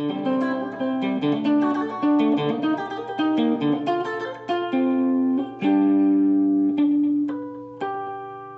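Plucked guitar music: a melody of clear single notes over a steady low bass note, ending on a few notes that ring out and fade near the end.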